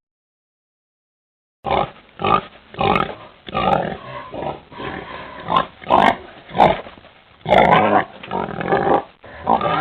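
Pig grunting and oinking in a run of short calls, about two a second, starting after a dead-silent gap of about a second and a half, with one longer grunt about three-quarters of the way through.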